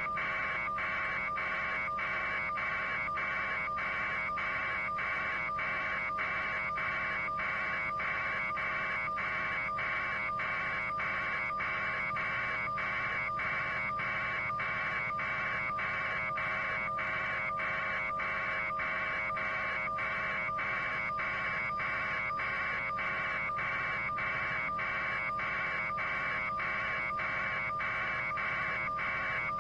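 Steady electronic buzzing, like signal interference on a live feed: two constant hum tones under a harsher buzz that pulses evenly about one and a half times a second, never changing.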